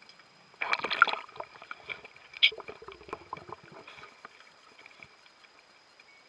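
Water sloshing and bubbling with a crackling burst, then a sharp knock about two and a half seconds in, followed by scattered small clicks that fade out.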